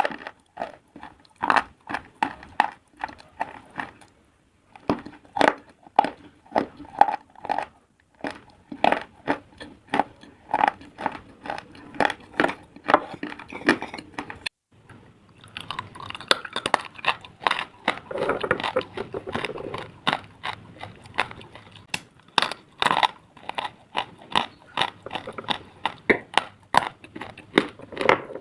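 A person biting and chewing hard, brittle slate pieces: a dense run of sharp, crackling crunches, broken by a few short pauses.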